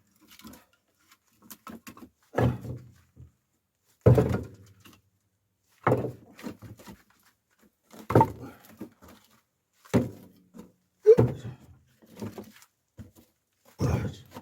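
Split firewood logs knocking one by one into the firebox of a wood-burning fireplace as it is loaded for a new fire. About seven dull knocks come roughly every two seconds.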